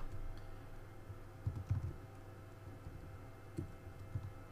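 A few scattered computer keyboard keystrokes: a short cluster about a second and a half in and a single key near the end, over a faint steady hum.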